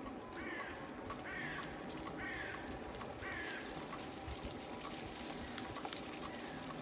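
A crow cawing: four harsh caws about a second apart, then quieter.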